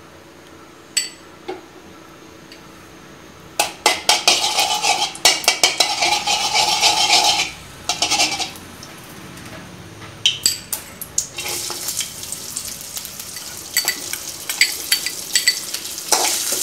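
Hot ghee sizzling in an aluminium pan while a metal spoon scrapes and clinks against the pan as it is stirred. Chopped coconut pieces go into the ghee to fry. The sizzling and scraping start loudly a few seconds in and settle into a steadier sizzle near the end.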